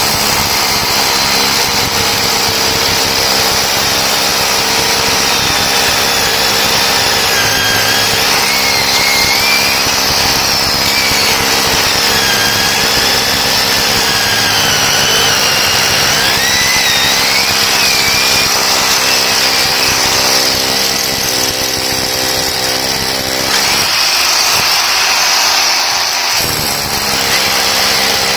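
Bosch rotary hammer drill running steadily as its masonry bit hammers into a concrete pillar, with a high whine that wavers in pitch. Late on, the lower part of the sound drops away for a couple of seconds, then picks up again.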